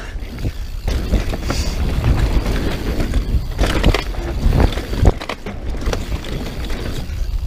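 Mountain bike ridden fast down a dirt trail: knobby tyres rumbling over the ground and wind buffeting the camera microphone, with sharp clattering knocks of the bike about four and five seconds in as it lands jumps.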